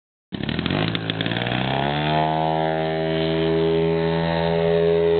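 A 3W-275 gasoline engine in a 50% scale Edge RC aerobatic plane running at high throttle on the takeoff run, its pitch rising over the first two seconds as it winds up, then holding steady as the plane climbs away.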